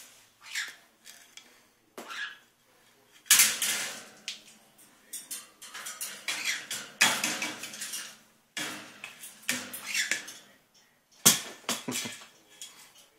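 Irregular clattering and knocking of a plastic ball and a macaw's beak against the metal wire top of a cage, as the blue-and-gold macaw plays with the ball. It comes in separate bursts, the loudest about three and a half, seven and eleven seconds in, with lighter rattling between.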